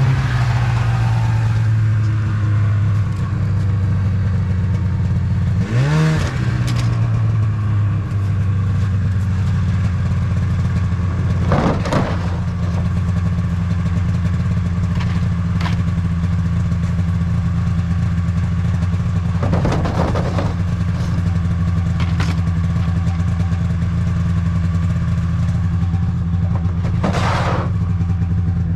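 Polaris Indy 440 snowmobile's two-stroke engine idling steadily, with one brief rev about six seconds in. Plastic gas cans knock now and then as they are handled.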